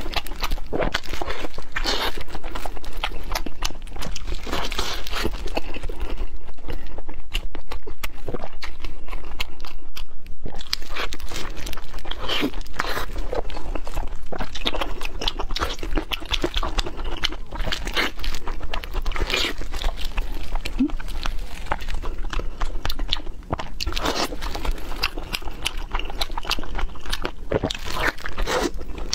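Close-up eating sounds of a person biting and chewing fried pork belly into a clip-on microphone at the collar: a dense, irregular run of crunches, crackles and mouth smacks.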